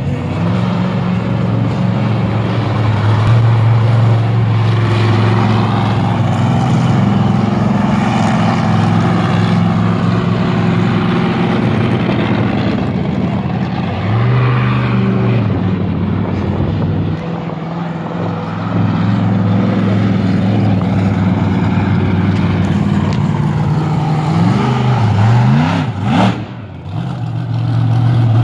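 The Raminator monster truck's engine running loud and steady, with a few quick revs rising and falling near the end.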